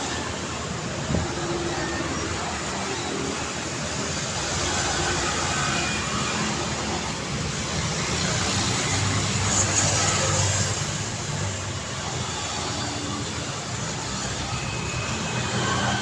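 Street traffic ambience: a steady wash of road noise with motor vehicles going by. One vehicle passes louder about ten seconds in, and there is a short sharp tick about a second in.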